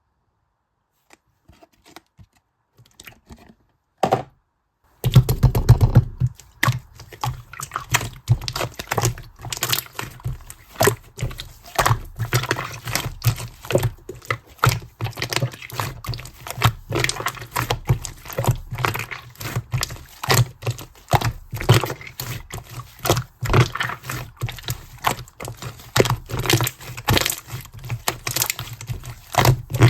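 Clear green slime being pressed and squished by hand, making a dense, uneven run of sticky clicks and small air-bubble pops. It begins faint, with a knock about four seconds in, and the clicking starts in earnest a second later.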